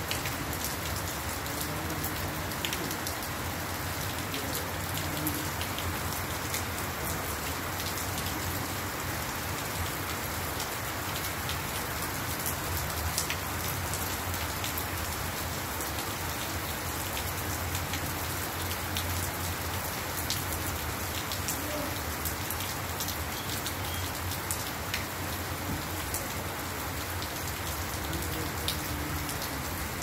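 Heavy rain falling steadily on a wet gravel lot and road. It makes an even hiss, with many scattered sharp drop impacts.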